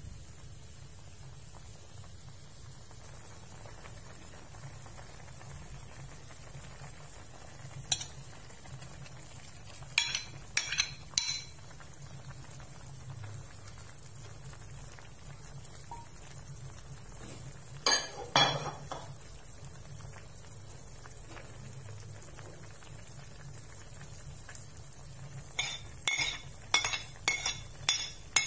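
A metal ladle clinks against an aluminium wok of simmering soup: a single knock, a quick run of three, then two more, over a low steady hum. Near the end comes a rapid run of clinks as a metal spoon taps against a plate, knocking chopped green onions into the wok.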